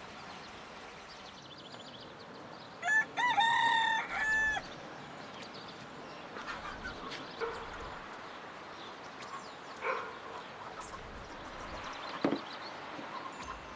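A rooster crows once, about three seconds in: a single long call that is the loudest sound here. Faint short clucks and knocks follow.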